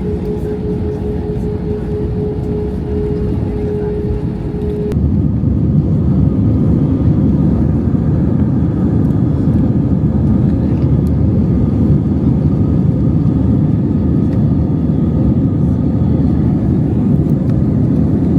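Airliner cabin noise: a steady low rumble of engines and airflow, with a held whine for the first five seconds. After that the rumble grows louder and stays steady.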